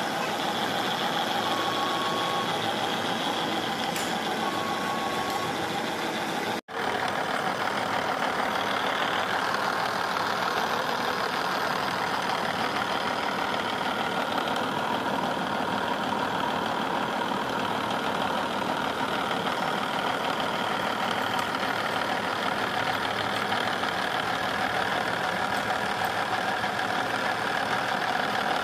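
Vertical milling machine running, its end mill cutting a metal V-block under flood coolant: a steady, dense mechanical noise. In the first few seconds a short beep sounds a few times, and the sound cuts out for an instant about seven seconds in.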